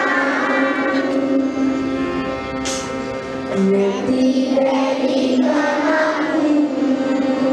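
A group of children singing a prayer together in unison, in slow, long held notes.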